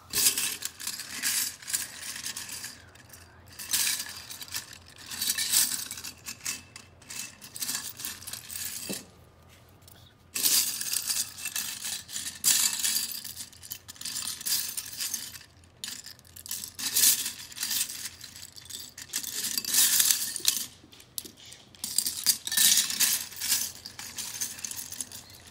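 Hands rummaging through loose plastic LEGO bricks in a bowl: the pieces rattle and clink against each other and the bowl in repeated bursts of a few seconds, with short pauses between, the longest pause about a third of the way through.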